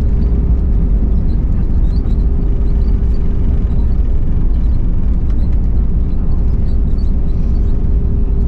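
Cabin noise of an Airbus A319-112 rolling on the ground just after landing: a steady, loud low rumble from the landing gear on the pavement and the idling CFM56 engines, with a faint steady hum over it.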